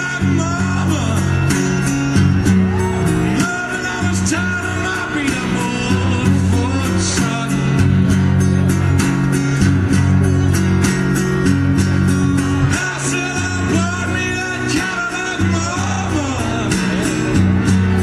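Live blues band playing, guitar to the fore over a steady bass line and a regular beat.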